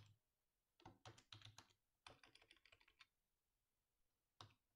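Faint computer keyboard typing: two quick runs of keystrokes, then a single keystroke near the end.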